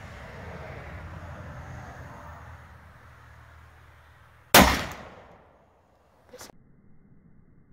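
A single shot from a Thompson Center Encore pistol chambered in .223: one sharp, very loud report a little past halfway, dying away within about a second. A much fainter sharp crack follows about two seconds later, and a low rumble fades out before the shot.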